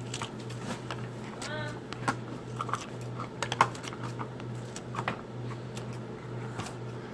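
Irregular light clicks and taps of small plastic toy pieces being handled and fitted into place, over a steady low hum, with a few faint voices.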